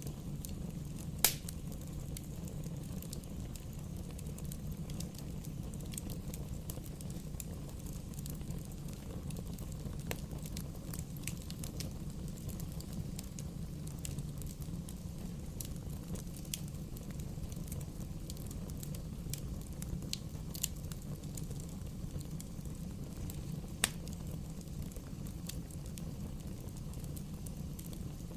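Wood bonfire burning: a steady low rumble from the flames with scattered sharp crackles and pops. The loudest pop comes about a second in, and another sharp one comes later on.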